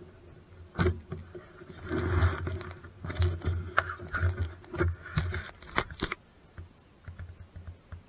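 Camera handling noise: irregular knocks, bumps and scraping rubs close to the microphone as the camera is moved and reached for. The noise stops about six seconds in.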